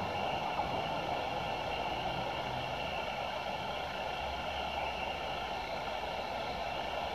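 Steady running noise of electric trains on the line: a Sotetsu train receding while a 185 series train approaches from far off.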